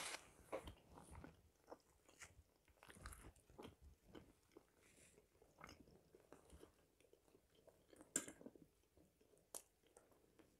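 Faint close-up chewing and mouth smacks of a person eating boiled potato and marinated herring, with scattered soft clicks; a slightly louder click comes right at the start and another about eight seconds in.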